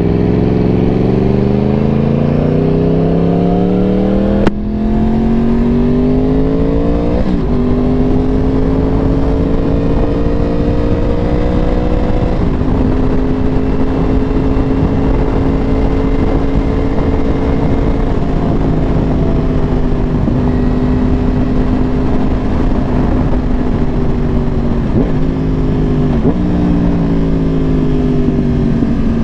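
Yamaha MT-07 parallel-twin engine through an aftermarket M4 exhaust, accelerating up through the gears: the pitch rises, breaks briefly at each of three upshifts, then holds at a steady cruise. Late on the pitch steps a couple of times and then falls as the bike slows.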